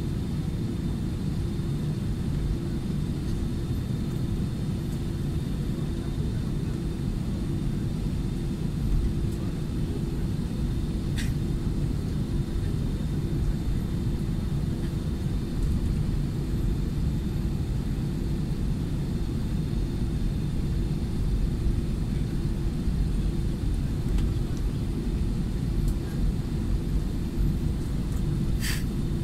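Steady low rumble of an Airbus A320-200's engines and airframe heard from inside the cabin while the jet taxis. There is a short click about a third of the way in and another near the end.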